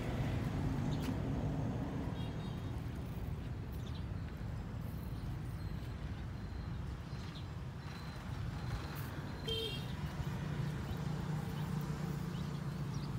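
Steady low outdoor background rumble, with a couple of faint, short high chirps about two seconds in and again near ten seconds.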